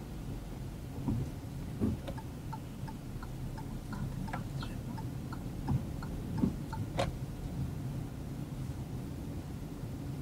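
Car turn-signal indicator ticking steadily, about three clicks a second, over the low hum of the engine and tyres on a wet road inside the cabin. A few louder knocks stand out, the loudest about six and seven seconds in.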